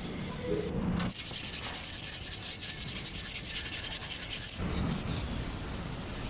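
Quick, even rubbing strokes on a Toyota Fortuner's front brake disc for a few seconds, then an aerosol can of brake cleaner hissing steadily as it sprays the disc.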